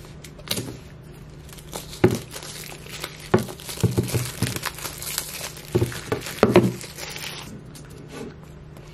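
Clear plastic shrink-wrap crinkling and tearing as it is peeled off a cardboard Apple Pencil box, with several sharp knocks from handling the box. The crinkling dies away shortly before the end.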